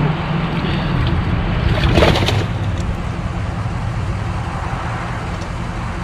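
A motor humming steadily at idle, with a brief louder noise about two seconds in.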